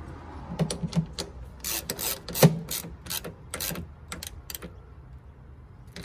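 Hand socket ratchet clicking in short back-and-forth strokes as it runs down the mounting bolt of a plastic coolant expansion tank. The clicking comes in bursts over about four seconds and then stops.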